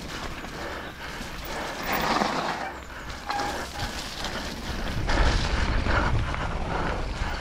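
Mountain bike rolling down a rough dirt trail: tyre noise and the bike rattling over the ground, with wind buffeting the microphone. A short squeak about three seconds in, and a heavier rumble from about five seconds in.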